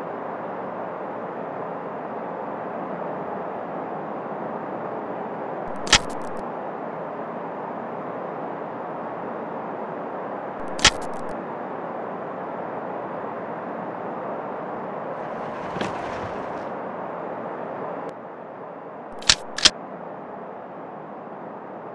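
Handgun shots in a film soundtrack: a single shot about a quarter of the way in, another about five seconds later, and two shots in quick succession near the end, each sharp and brief. A steady noise runs underneath.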